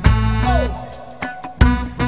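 Live reggae band playing, with drum kit, bass, electric guitars, keyboards and saxophone, loud chord hits at the start and again near the end, and a short falling note bend about half a second in.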